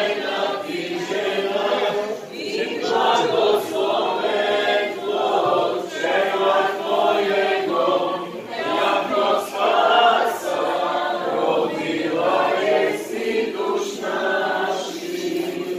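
A group of voices singing a church hymn together, the sung lines running on without a break.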